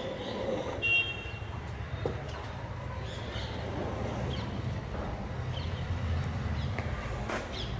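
Birds chirping: scattered short high calls, with one louder call about a second in, over a steady low rumble.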